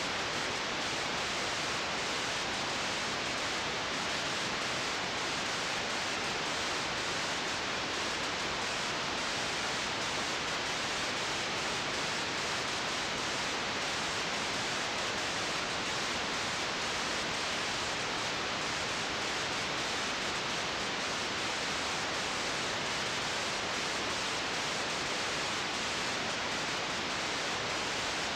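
Steady, even hiss from the blank end of an old home-movie recording being played back, with no other sound in it.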